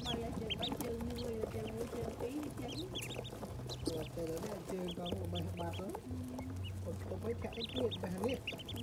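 A brood of ducklings peeping: short high chirps from many birds, coming in bursts about three, five and eight seconds in.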